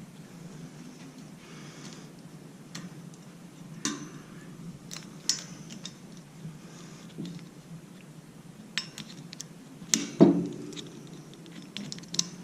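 Plastic shelf clips being fitted onto the chrome poles of a wire shelving unit: scattered clicks and light metallic clinks, about seven in all, the loudest near the end.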